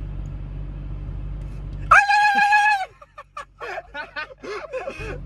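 A person making silly vocal noises: a high, held squeal about two seconds in, then a run of short, warbling sounds that bend up and down in pitch.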